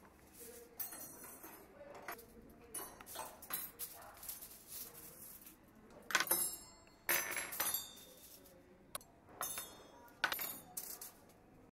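Irregular clinks and clatters of small hard objects knocking together, the loudest a little past the middle.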